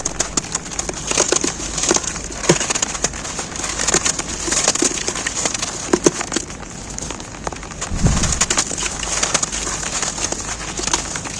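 Snow being crumbled, a dense run of crisp crackles and crunches, over a steady hiss of rain falling on an umbrella.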